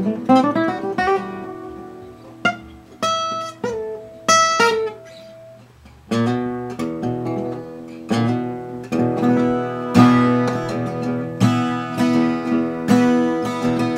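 A 1945–46 Gibson LG-2 small-body flat-top acoustic guitar played solo. For the first half it plays a few sparse notes and lets them ring. From about halfway it settles into a steady, rhythmic run of picked chords.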